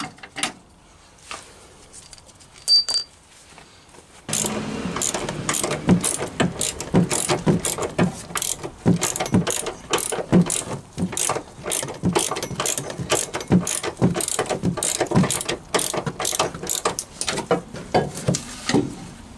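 Hand ratchet wrench clicking rapidly, stroke after stroke, as it works the rear shock absorber's upper mounting bolt. A few separate knocks come first, and the steady ratcheting starts about four seconds in.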